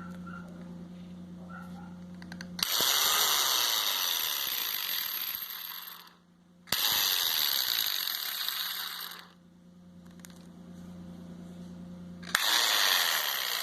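Bosch GDC 14-40 marble saw switched on three times in short runs of about three seconds each. Each run starts suddenly and the motor goes with a loud, harsh noise from a broken bearing. A steady low hum sounds between the runs.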